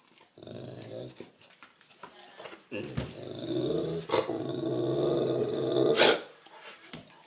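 French Mastiff (Dogue de Bordeaux) growling: a short growl first, then a longer, louder growl from about three seconds in that ends in a short, loud bark near six seconds.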